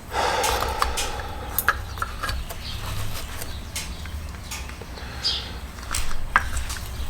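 Scattered light clicks and taps of small parts being handled while fitting weather stripping around an LED headlight, over a low steady hum. There is a sharper tap about six seconds in and a short high chirp a little before it.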